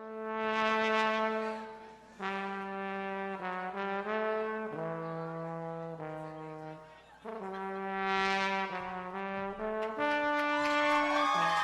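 A solo trombone plays the opening melody of a rocksteady tune in held notes with short breaks between phrases. Near the end more instruments come in.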